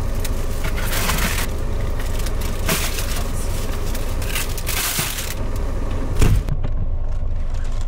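Plastic grocery bags rustling and crinkling in several bursts as they are handled and loaded into the back of a vehicle, with a thud about six seconds in as one is set down. A steady low rumble runs underneath.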